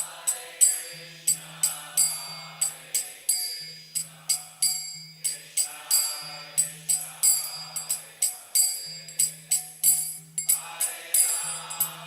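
Kirtan music between chanted verses: small hand cymbals (karatalas) struck in a steady rhythm, about two to three strikes a second with a bright ring, over a low held tone that sounds in phrases of a second or two.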